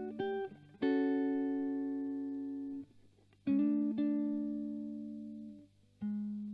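Epiphone Emperor archtop electric guitar amplified through a Fender Blues Junior, playing a slow solo chord-melody: chords struck one at a time and left to ring, each fading over about two seconds before the next. A faint steady hum lies underneath.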